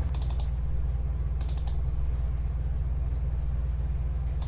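Two quick bursts of computer mouse clicking, one near the start and one about a second and a half in, over a steady low hum.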